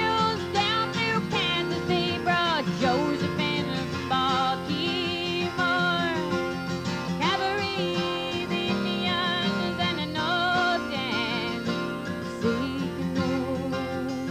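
A woman singing a country-folk song, with vibrato on held notes, to her own acoustic guitar accompaniment, heard live through a microphone.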